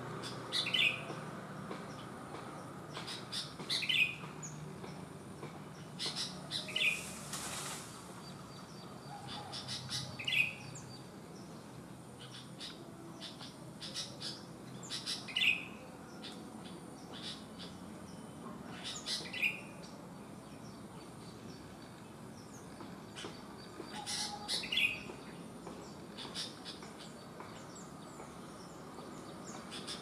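Sooty-headed bulbul (kutilang) singing short, bubbly phrases, one every three to five seconds, with faint chips between them and a brief rustle about seven seconds in.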